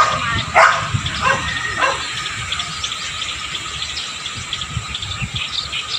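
A dog barks about five times in the first two seconds, then stops. After that, birds chirp in short high notes over a steady thin tone.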